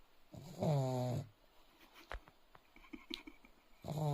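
A sleeping dog snoring: two loud, pitched snores, one about half a second in and another near the end, each lasting under a second and dropping slightly in pitch.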